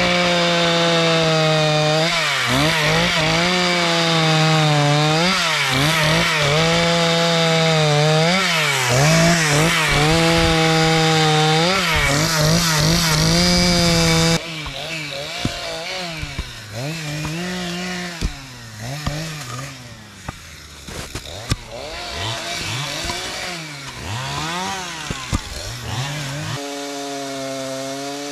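Two-stroke chainsaw bucking a felled spruce log, its engine pitch rising and dipping over and over as it revs up and bogs into the wood. About halfway through, the saw becomes quieter and more distant, still revving in and out of cuts.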